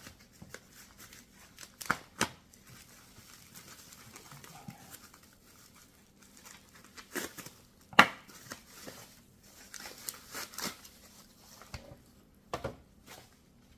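Packaging being crinkled and torn open as parts are unwrapped, with scattered clicks and knocks; the sharpest knock comes about eight seconds in.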